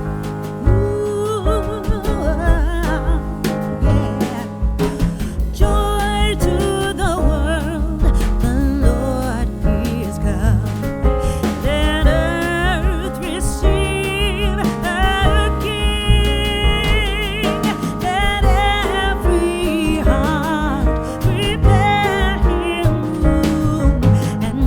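Background music: a song with a sung vocal melody over instruments and a steady beat with strong bass.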